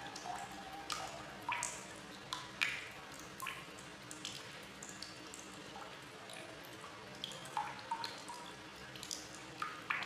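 Water drops plinking irregularly, about two a second, each a short sharp plop with a brief ringing tone, over a soft steady watery hiss.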